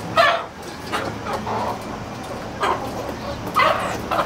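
Caged country chickens (nati koli) squawking and clucking in about half a dozen short calls, the loudest just after the start and near the end.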